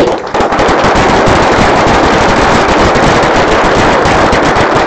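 Audience applauding, a loud, steady, dense clapping.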